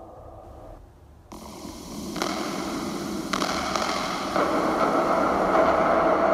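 Ambient electronic soundscape: a low hum, then a noisy texture that cuts in suddenly and builds in loudness as new layers enter in steps about a second apart, with a steady tone coming through near the end.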